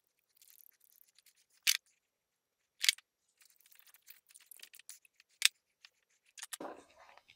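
Hand crimping tool pressing terminal ends onto 8-gauge battery-charger wire: three sharp clicks amid light rustling and clicking of cable and terminal, then a duller thump near the end.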